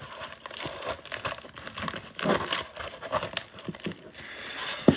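A shrink-wrapped DVD case being worked out of tight packaging: irregular rustling, crinkling and scraping of plastic wrap against the packaging as it is tugged free.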